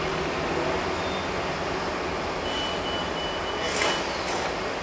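Freight train's loaded hopper cars rolling along the track, a steady rumble with a thin high squeal from the wheels partway through and a single sharp knock about four seconds in.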